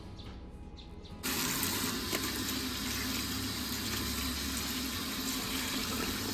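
Kitchen tap turned on about a second in, water running steadily from it.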